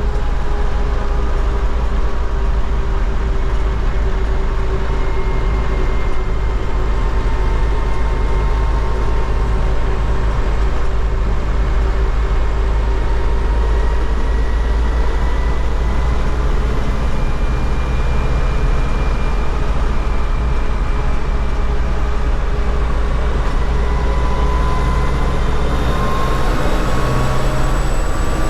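MTZ-80 tractor's D-243 four-cylinder diesel running steadily under way, with a drivetrain whine that slowly sinks in pitch and climbs again near the end.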